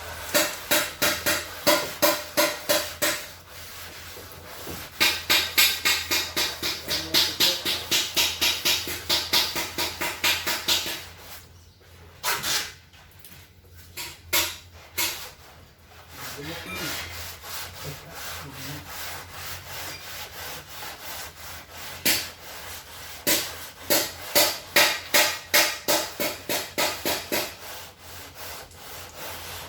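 Hand sanding a car's engine bonnet with sandpaper: rhythmic back-and-forth rasping strokes, about two to three a second, to level the panel flat. The strokes stop for a few seconds near the middle, with a few knocks, then go on more lightly before picking up again near the end.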